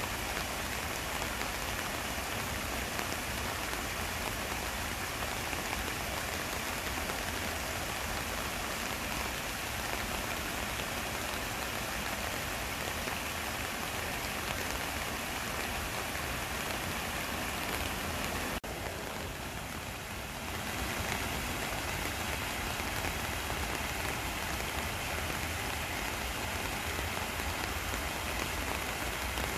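Steady rain falling together with a small stream splashing down a stepped cascade of rocks, an even hiss. A click and a brief dip in level come about two-thirds of the way through.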